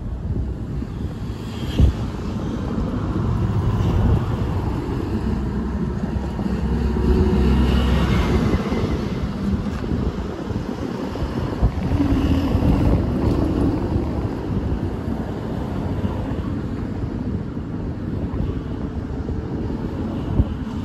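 Wind buffeting the microphone over a steady low outdoor rumble, swelling a little a few seconds in and again near the middle, with a couple of faint tones coming and going.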